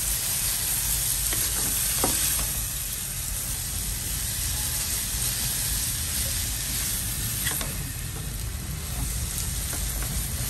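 Rice vermicelli and prawns sizzling in hot oil in a pan while being stir-fried with a spatula, with a couple of light knocks of the spatula against the pan.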